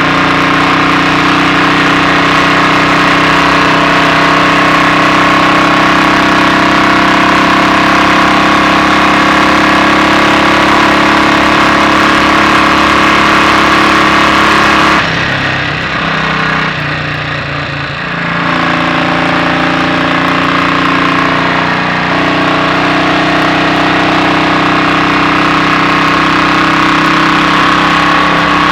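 A Royal Enfield Bullet 500's single-cylinder engine, its inlet cam retarded by one tooth, runs under way at a steady speed. About halfway through it briefly eases off and drops in level for a few seconds, then settles back to a steady note.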